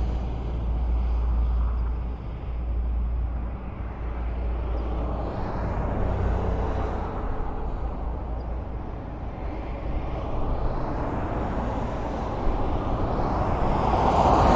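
Highway traffic: a steady low rumble of cars passing on the road, swelling and easing as vehicles go by. It grows louder near the end as a vehicle approaches.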